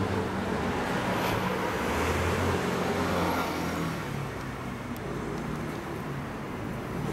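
Street traffic with a motor vehicle's engine running close by, a steady low hum that slowly shifts in pitch over the traffic noise.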